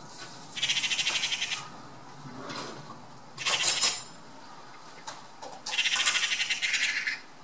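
Eurasian magpies giving their harsh, fast chattering rattle twice, each rattle about a second long, with a shorter, louder harsh sound in between. It is the alarm chatter magpies use when mobbing a bird of prey on its kill.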